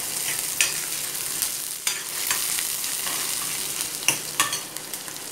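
Chopped onions sizzling in hot sesame oil in an iron kadai, a steady hiss. A steel ladle stirs them, scraping and knocking against the pan several times.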